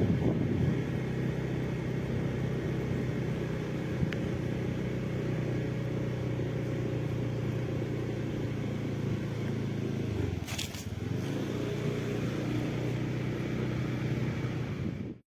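An engine running steadily with a low, even hum, which wavers briefly about ten seconds in and then cuts off suddenly near the end.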